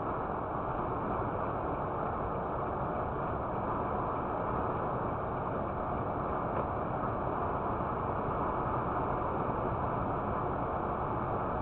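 Steady road and engine noise of a truck driving at highway speed, heard from inside the cab, with no change in pitch or level.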